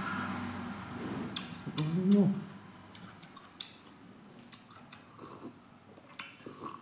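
Close-up eating sounds from a man: chewing with two short hummed 'mmm' sounds in the first two seconds, then sipping and slurping broth from a glass bowl, with small mouth clicks.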